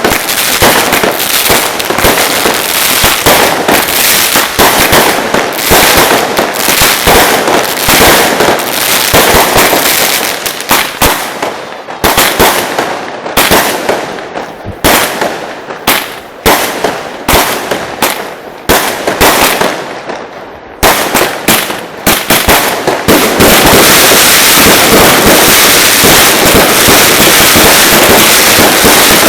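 Ground fireworks going off in rapid firecracker bangs, which thin out to separate bangs with short gaps in the middle, then merge into a continuous dense barrage of bangs about two-thirds of the way in.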